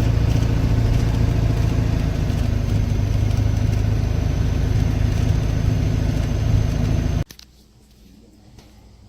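A car engine running steadily with a low hum, cutting off abruptly about seven seconds in.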